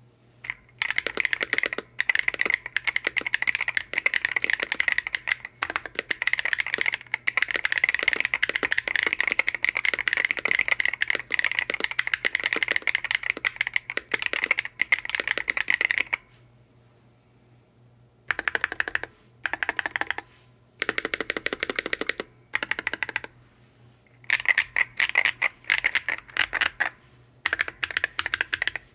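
Hummingbird68 keyboard being typed on, its Elven Blink linear Hall-effect switches on an aluminium plate under double-shot PBT keycaps: fast continuous keystrokes for about sixteen seconds, then a pause, then several shorter bursts of typing. The sound is pingy, with the 'scrunchy' switch sound common to Hall-effect switches.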